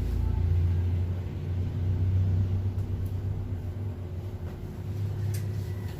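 A steady low rumble with a faint hum, swelling slightly and easing, and a faint click near the end.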